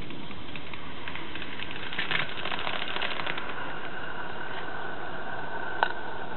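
Roundhouse 'Billy' live-steam garden-railway locomotive running on the track: a rapid patter of ticks, busiest two to three seconds in, then a faint steady high tone as it comes into the open, and one sharp click near the end.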